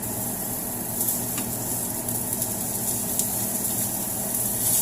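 Tapa (cured beef) sizzling as it fries in a hot pan, a loud steady hiss with scattered crackles of spattering oil, over a steady low hum.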